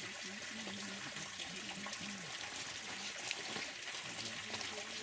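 Spring water running steadily, with people talking faintly in the background.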